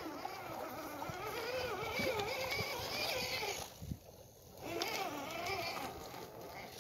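Axial SCX10 II RC crawler truck's electric motor and gear drive whining, its pitch wavering up and down with the throttle. It stops for about a second just past the middle, then starts again.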